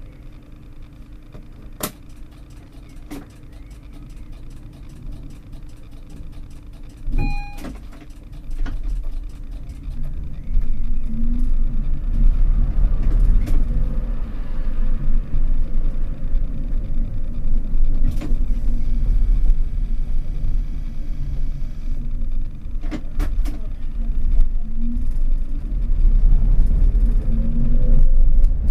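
A tram stands at a stop, heard from the driver's cab, with a short beep about seven seconds in. It then pulls away: the low rumble of its motors and wheels on the rails grows louder as it speeds up, with a rising whine near the end.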